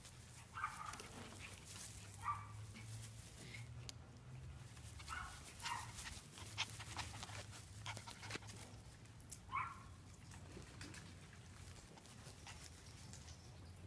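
Coton de Tulear puppies giving several short, high yips and whimpers a few seconds apart, over a low steady hum.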